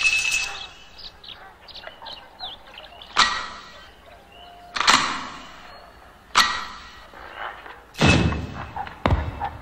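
Cartoon sound effects: small squeaky chirps, then four sharp hits about a second and a half apart, each trailing off.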